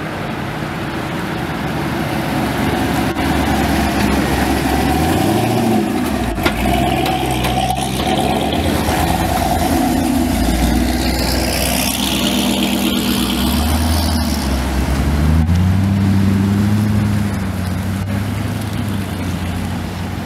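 Several performance cars pulling away one after another, engines revving up and easing off as each passes close by, the pitch rising and falling several times.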